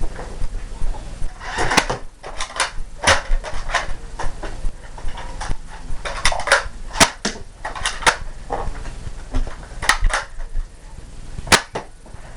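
Nerf dart blasters firing and being handled: a run of sharp clicks and snaps at irregular intervals.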